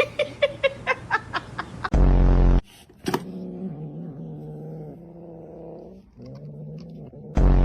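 A cat yowling in two long, wavering calls, broken by short, very loud blaring blasts about two seconds in and near the end. It opens with a quick run of short sharp sounds.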